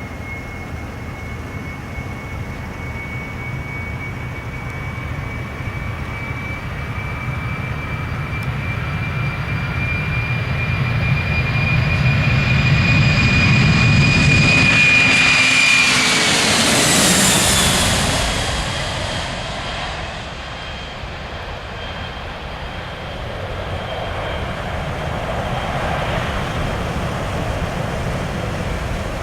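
Boeing 747-400's four jet engines at takeoff power as the airliner passes. The engine noise grows louder with a steady high whine, which drops in pitch as it goes by about halfway through. It then fades to a rumble that swells again near the end.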